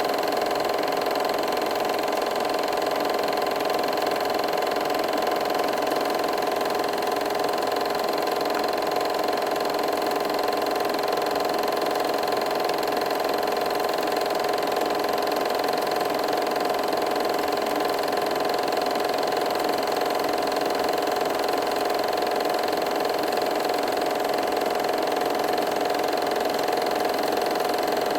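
A steady, unchanging mechanical hum of a running machine.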